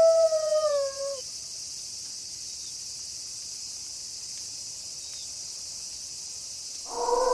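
A wolf's howl slides down in pitch and fades out about a second in, leaving a steady chorus of crickets. Near the end another long howl starts on a lower note.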